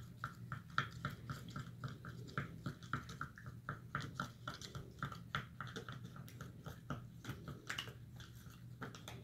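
Sticky SlimyGloop slime with sand in it being mixed, making a quick run of small wet squelching clicks, several a second. The slime is still sticky at this stage of mixing.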